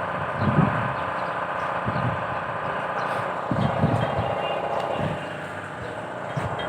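Deutz F4L 912 air-cooled four-cylinder diesel engine running steadily after its overhaul, with a few irregular low thuds over the engine noise.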